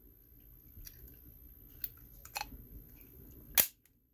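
Quiet handling of a semi-automatic pistol as a primed case is fed into it, with a few faint clicks, then one sharp, loud metallic clack about three and a half seconds in.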